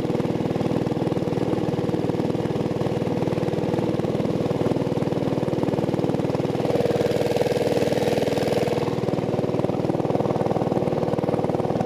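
A small gasoline mud motor runs steadily at speed, pushing a loaded canoe upriver, with water rushing along the hull. It gets a little louder and brighter about two-thirds of the way through.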